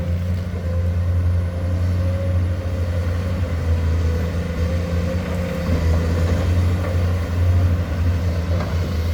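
Heavy diesel engine of a Komatsu excavator running steadily, a low drone with a constant high whine over it.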